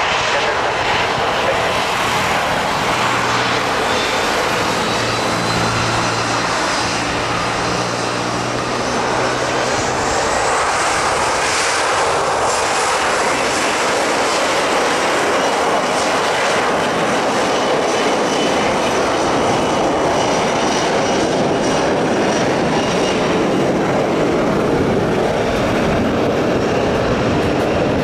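Boeing 737-300 freighter's twin CFM56-3 turbofan engines running as the jet rolls on the runway: a steady loud jet roar with a faint high whine. The hiss fills out about ten seconds in.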